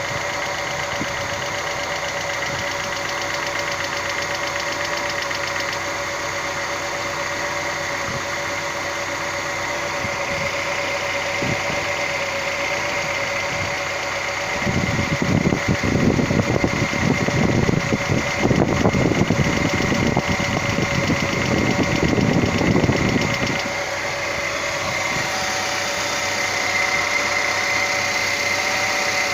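Car engine idling with a fast, steady ticking knock from the hydraulic lifters (lash adjusters) in the valve train. About halfway through the sound turns louder and rougher for several seconds before settling back to the idle.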